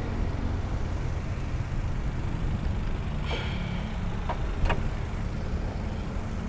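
Toyota Rush's 1.5-litre four-cylinder VVT-i engine idling with a steady, even low hum, running smoothly. A few light clicks partway through.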